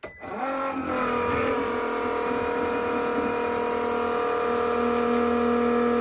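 Milwaukee 18-volt battery-powered pump switched on, starting abruptly and settling within about a second into a steady motor whine as it flushes descaling vinegar through a tankless water heater. The return stream pours from a hose into a bucket.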